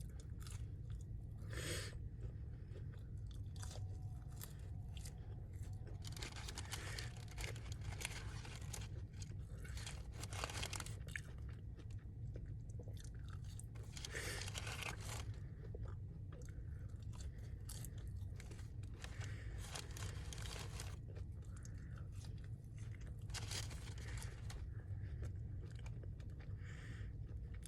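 Close-miked chewing and crunching of fried chicken with crispy skin: irregular crackling bites and wet chewing, over a steady low hum.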